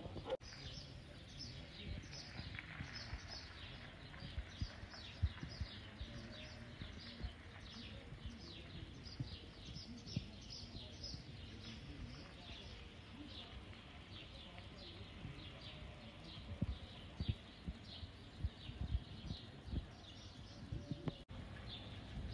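Birds chirping over and over with short falling calls, several a second, faint, over an uneven low rumble of wind buffeting the microphone.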